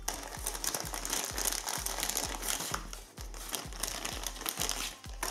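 Clear plastic bag crinkling as it is handled and opened, over a steady low beat of background music.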